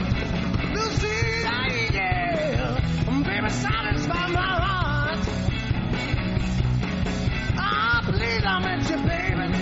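Blues band playing live: a wavering, bending lead line over bass and drums.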